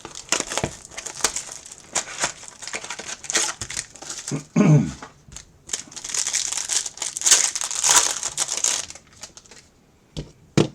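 Plastic wrapping crinkling and tearing as a sealed trading-card box is opened, with cardboard rustling and clicking; the crinkling is densest in the second half.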